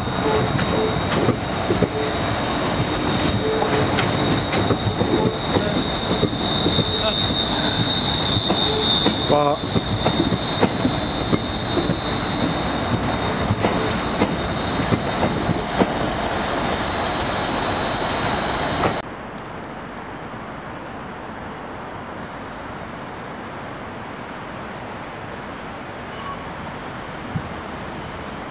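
ScotRail Class 380 Desiro electric multiple unit running along the track, its wheels giving a steady high-pitched squeal over clicking and clatter from the rails. About two-thirds of the way through the sound cuts off suddenly, leaving a quieter steady rumble.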